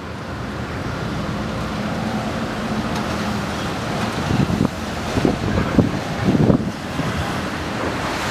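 Strong storm wind blowing across the microphone, building and then buffeting in heavy gusts from about halfway through.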